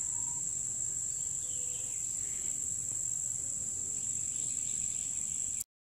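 Steady, high-pitched chorus of insects trilling in the background, cutting off suddenly near the end.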